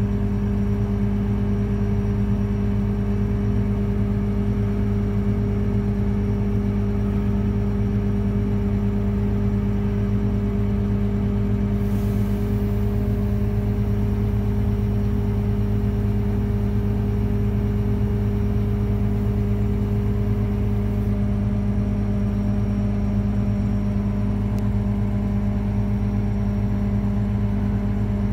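Diesel engine of a Jackson 6700 track tamper running at a steady speed, heard from the operator's cab as a constant low drone with a steady hum.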